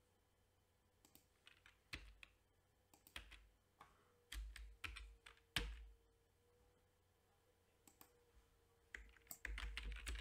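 Faint computer keyboard keystrokes, a few single taps spread out and then a quicker run of typing near the end.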